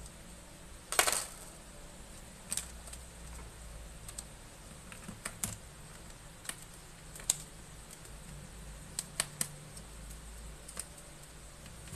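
Scattered light clicks and taps of hard laptop parts knocking together as a MacBook Pro logic board is lifted and handled inside its case. The loudest is a short clatter about a second in, with a quick run of three clicks near the end.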